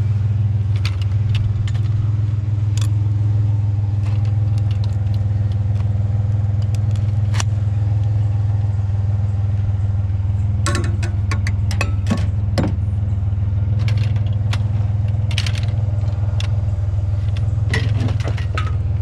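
A vehicle engine running steadily at an even low hum, with scattered light clicks and rattles of loose metal, clustered about ten to thirteen seconds in.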